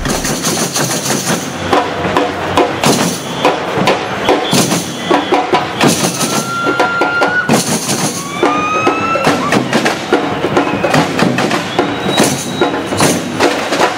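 Samba percussion music playing a busy, driving beat, with a few high held tones sliding upward over it partway through.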